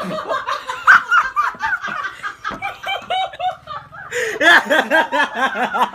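A person laughing hard in quick repeated bursts of chuckling and snickering, breaking into a louder bout about four seconds in.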